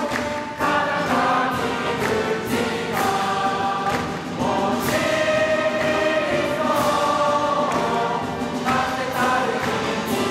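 A large choir and audience singing a Japanese song together in unison, with sharp claps at fairly even spacing.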